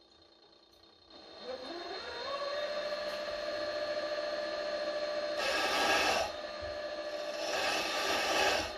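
Milling machine spindle spinning up, its whine rising over about a second and then running steady, as an end mill plunges into a thick aluminium plate. The cutting noise swells twice, about halfway through and again near the end.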